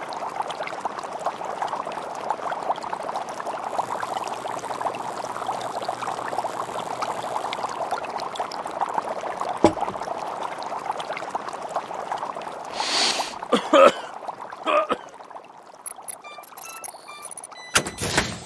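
Liquid pouring and trickling steadily in lab glassware for most of the time. Near the end come a few knocks, short rushes of noise and brief ringing clinks of glass.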